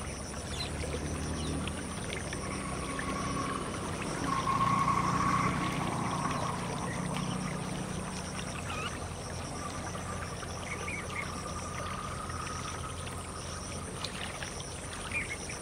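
Frogs calling in a steady trill that swells about four seconds in, over the steady run of shallow canal water, with a low hum underneath.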